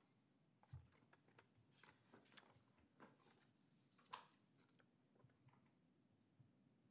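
Near silence: meeting-room tone with a few faint clicks and rustles, the clearest about four seconds in.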